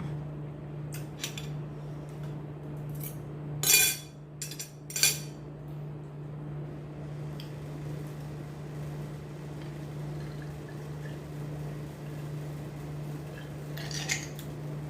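Cutlery clinking against a plate while eating: a few sharp clinks, the loudest about four and five seconds in and another near the end, over a steady low hum.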